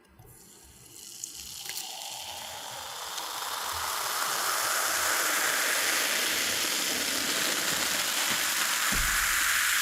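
Cola being poured, the stream and its fizz growing louder over the first four seconds, then running steadily.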